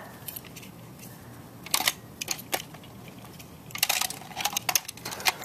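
Plastic clicks and rattles from a Siddeley toy jet being handled while its button is pressed to spring out a small Lightning McQueen car: a few separate clicks about two seconds in, then a quicker run of clicks near the end.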